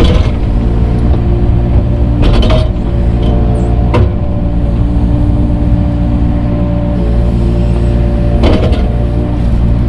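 Diesel engine of an earthmoving machine running steadily under load while grading dirt, with a few sharp clanks about two and a half, four and eight and a half seconds in.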